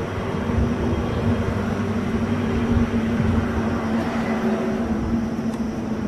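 Steady low rumble with a droning hum, like a running engine or motor traffic.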